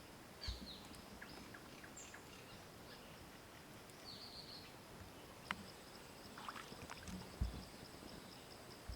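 Quiet rice-field ambience with a few short downward bird chirps, and a high, steady, pulsing tone that starts about halfway through. A few soft low thumps are heard, the loudest near the end.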